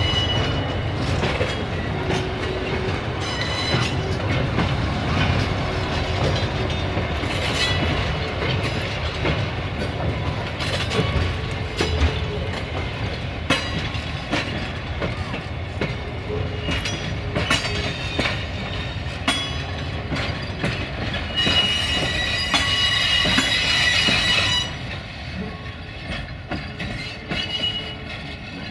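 LDH1250 diesel-hydraulic shunting locomotive moving through the station tracks: a steady engine rumble, with wheels clicking over rail joints and points. Near the end, wheels squeal for about three seconds, then the sound drops off.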